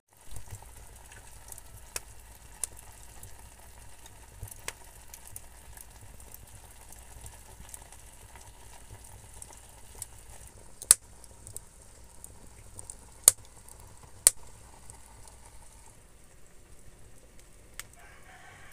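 Aluminium pot of carabao skin boiling in broth, a steady bubbling sizzle with a few sharp pops and crackles, the loudest ones about eleven, thirteen and fourteen seconds in.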